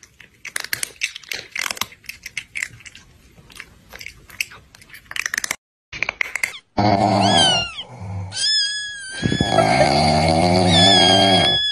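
Chewing sound effect: scattered crunchy bites and mouth clicks for the first five seconds or so. From about seven seconds in, a loud rattling snore sound effect with high whistling tones that slide downward, repeated three times.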